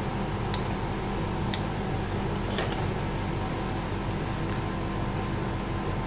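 Air conditioning unit running with a steady hum. A few faint clicks from plastic parts being handled come in the first few seconds.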